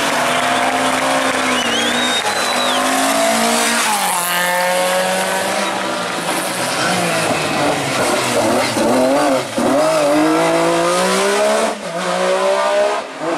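Rally car engine revving hard, its pitch climbing and dropping sharply several times as the driver shifts gear or lifts, with a thin tyre squeal about two seconds in.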